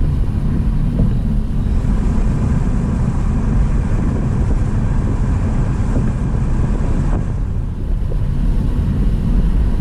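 Car driving at highway speed, heard from inside the cabin: a steady low rumble of tyres and wind that eases slightly for a moment near the end.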